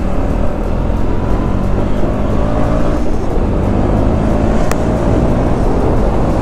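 KTM Duke 200 single-cylinder engine running under way, its note climbing slowly, mixed with heavy wind rush on the helmet camera. There is a single brief click about two-thirds of the way in.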